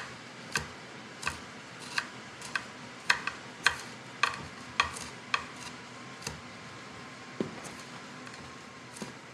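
Kitchen knife chopping on a wooden cutting board: a sharp tap a little under twice a second, thinning out and stopping about two-thirds of the way through.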